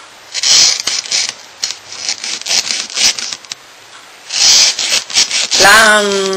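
Flexible knife scraping along a trout's bones as it is filleted: three runs of rasping strokes with small clicks as the blade catches on the bones. Just before the end, a brief vocal sound falls in pitch and then holds.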